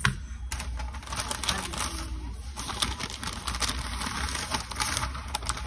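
A sharp tap right at the start, then the crinkling and rustling of a McDonald's paper takeout bag as a hand rummages inside it, with many small crackles.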